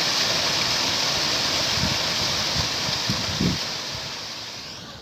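Steady rush of water that fades away over the last second or so, with a few low thuds around the middle.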